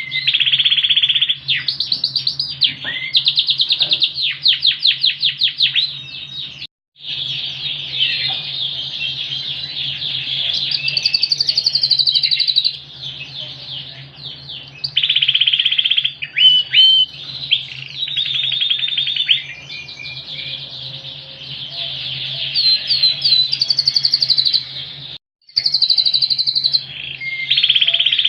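Yorkshire canary singing loudly and almost without pause: long runs of rapid trills, rolls and warbled phrases, broken by two brief dead stops, about a quarter of the way in and near the end, over a faint steady low hum.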